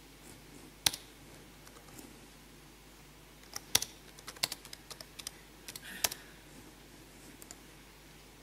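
Typing on a computer keyboard: a single keystroke about a second in, then a quick run of key presses between about three and a half and six seconds as a command is entered.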